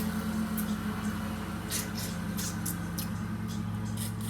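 A lawn mower engine running steadily in the background, a constant low drone, with short crisp cracks and clicks of snow crab shells being broken while eating, mostly in the second half.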